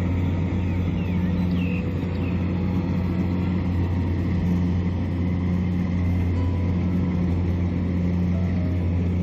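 Kubota DC-70 rice combine harvester running steadily under load: its diesel engine and threshing machinery make a constant low drone with no change in pitch.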